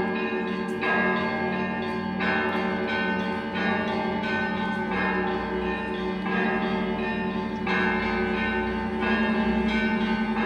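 Russian Orthodox church bells ringing a peal: several bells of different pitches struck together in a repeating pattern, fresh strikes about every second and a half, over the steady hum of a deeper bell.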